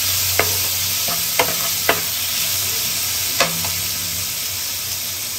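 Vegetables frying in hot oil in a pan, a steady sizzle, while being stirred with a spoon; four sharp clicks of the utensil against the pan break through it.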